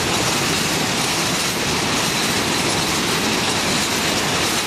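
Coal train's hopper wagons passing at speed close by, steel wheels on the rails making a steady, very loud noise.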